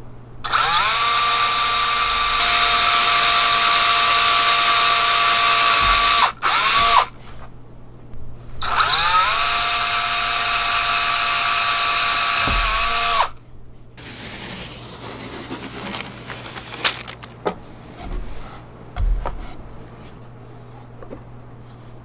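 DeWalt XRP cordless drill drilling into thin hardboard panels: the motor spins up and runs steadily for about six seconds, gives a short burst, then runs again for about four seconds before winding down. Light knocks and clicks of handling follow.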